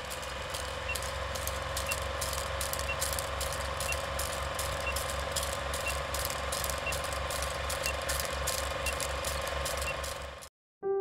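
Old-film countdown sound effect: a film projector's rapid rhythmic clatter with crackle and a steady hum, and a short high beep once a second, ten in all. It cuts off suddenly near the end.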